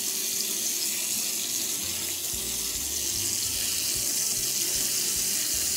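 Bacon-wrapped chicken fillet pieces sizzling steadily in a frying pan.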